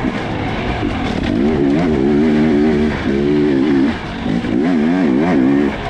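Off-road motorcycle engine revving up and down under the rider's throttle, held high for stretches and then rapidly rising and falling, with scattered short knocks.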